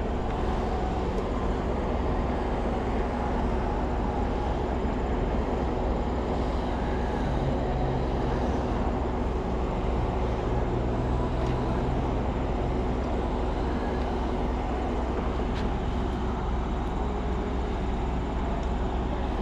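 Steady rumble of road and wind noise from travelling, with a faint hum rising briefly in the middle.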